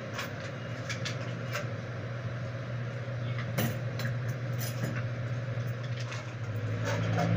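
Grooming scissors snipping the fur on a dog's head, a scatter of short irregular clicks over a steady low hum.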